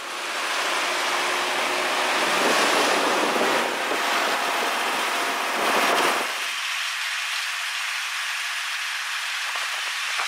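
Old fire truck driving along a street, heard at the open cab window: a steady rush of wind and road noise over the engine. The low rumble drops away about six seconds in.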